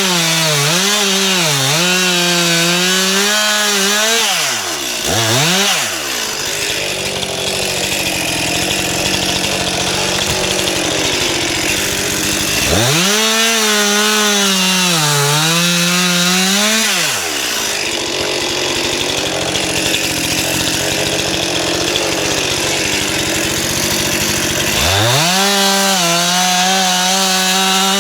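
Stihl MS 261 two-stroke chainsaw cutting wood: the engine runs at high revs, its pitch dipping and recovering as the chain bites. It drops to a lower engine speed for two longer stretches, from about 6 to 12 s and from about 18 to 25 s.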